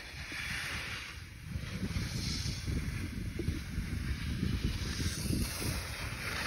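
Wind buffeting the microphone during a ski descent: a steady low rumble, with the hiss of skis scraping across snow swelling and fading every second or two as the turns go.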